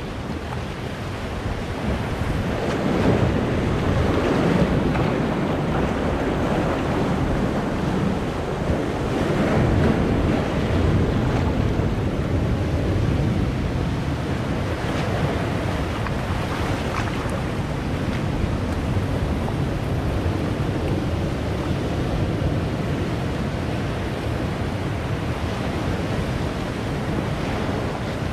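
Sea surf breaking and washing among boulders on a rocky shore: a continuous rush of water that swells louder as waves come in, strongest a few seconds in and again around ten seconds, then easing toward the end.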